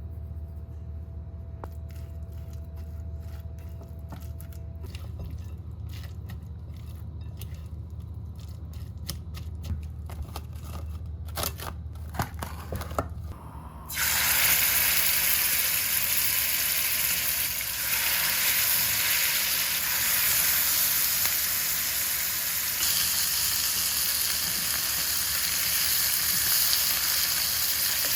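Low hum with scattered light clicks and taps, then about halfway through a loud, steady sizzle starts abruptly: food frying in hot oil.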